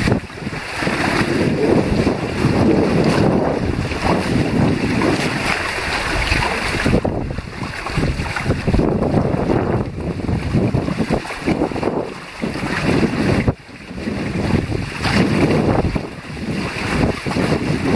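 Wind buffeting the microphone in gusts over the rush and splash of water against the hulls of a small sailing catamaran under way. The wind briefly drops away a little past the middle.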